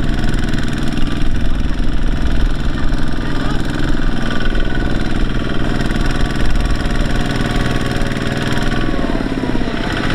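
Diesel engine of heavy machinery running steadily at a fairly low speed, with no clear revving or stopping.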